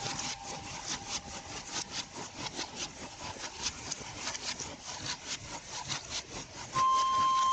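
Rhythmic wooden clattering, about three sharp knocks a second, typical of a power loom running in a weaving shed. Flute music with a held high note comes in near the end.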